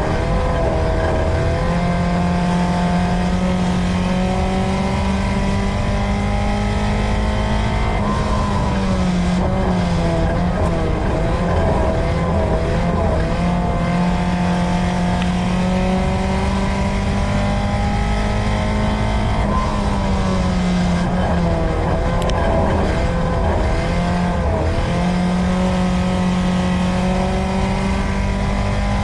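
USRA Tuner dirt-track race car's engine, heard from inside the car, running hard at a high, steady pitch. Its pitch dips and wavers twice, about a third of the way in and again past the two-thirds mark, then climbs back, as the car lifts through the turns.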